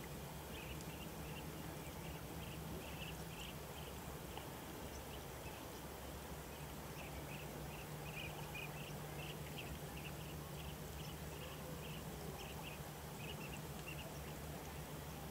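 Faint outdoor ambience: many short, high chirps from distant birds, a few a second and irregular, over a low steady hum.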